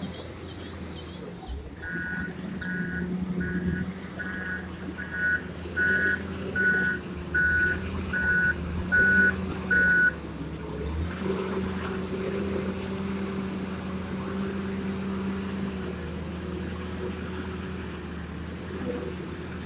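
Wheel loader's diesel engine running while the loader reverses, its reversing alarm beeping about eleven times, a little more than once a second. The beeping then stops and the engine runs on as the loader drives forward and lifts its bucket.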